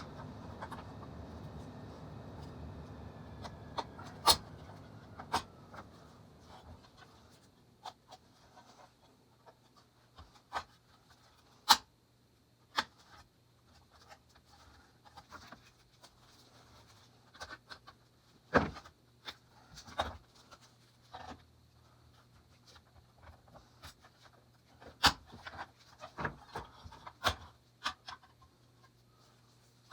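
Scattered sharp clicks and taps of small parts being handled, over a faint steady hum. A low rumbling noise at the start fades out over the first few seconds.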